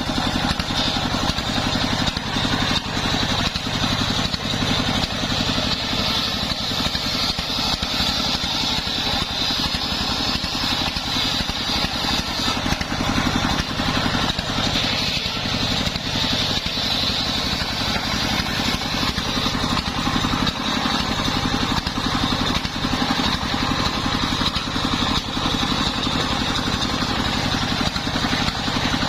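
Home-built engine-driven circular saw running steadily, a continuous engine drone under a high, steady whine.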